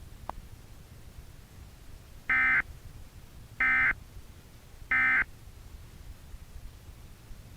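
Emergency Alert System end-of-message data bursts: three short, buzzy digital squawks about 1.3 seconds apart, the SAME 'NNNN' code that closes an EAS broadcast.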